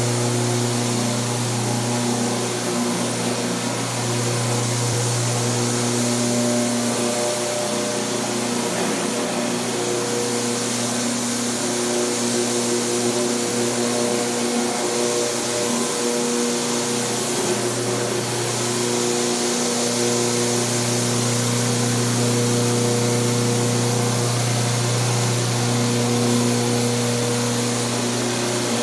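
Rotary floor scrubbing machine running steadily as its pad scrubs wet tile: a constant electric motor hum over a wash of hiss.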